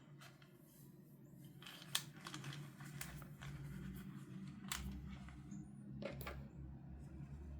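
Scattered sharp clicks and light rustling of plastic toy pieces and packaging being handled, about five clicks, over a faint low hum.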